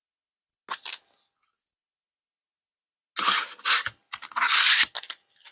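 Packaging handled by hand: two quick clicks a little under a second in, then about two seconds of loud rustling and scraping, with a few more clicks near the end, as the next palette set is taken out.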